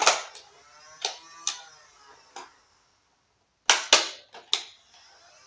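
Nerf blasters firing and foam darts hitting empty plastic bottles, knocking them over: a run of sharp clicks and hollow knocks with a short ringing tail. The audio drops out completely for about a second in the middle, and the loudest cluster of knocks follows.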